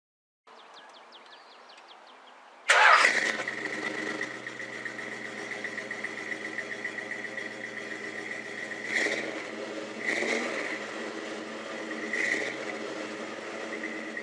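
1964 Ford F100 pickup engine catching with a sudden loud burst, then running steadily, with three short rises in level from blips of the throttle.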